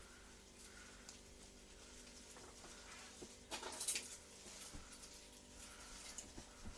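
Faint rustling with a few soft taps over a low steady hum, loudest briefly about three and a half seconds in.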